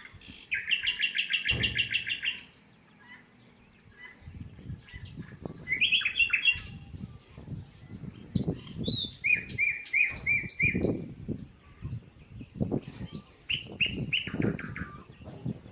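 Small birds chirping: a fast trill of repeated chirps near the start, then scattered chirps and short runs of chirps. Low thumps and rustles come in between from about four seconds on.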